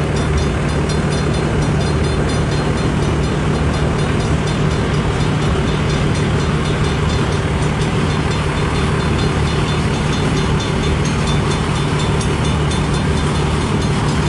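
Cars of a long CN mixed freight train rolling past, a steady rumble of wheels on rail with two steady low hums under it.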